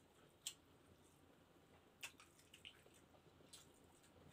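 Near silence broken by a handful of faint, short wet clicks and smacks of a person eating with his fingers: lips and fingers smacking as he chews.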